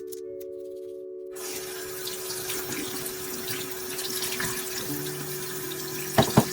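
Water running from a sink tap, coming on about a second and a half in, over soft background music. Two sharp knocks sound near the end.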